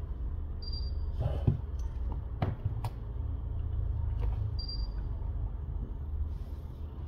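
Suction cup and phone handled on the mat while the back cover of a Samsung S20 Ultra is pulled up: a few light clicks and knocks over a steady low hum.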